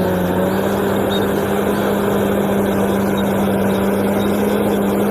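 Bulldozer engine sound effect: a steady idling engine with a constant low hum that does not change in pitch.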